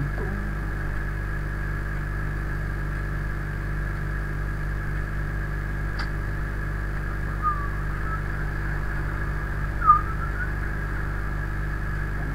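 Steady electrical mains hum and hiss from the recording setup. A single faint click comes about six seconds in, and two short high squeaks near eight and ten seconds; the second squeak is the loudest.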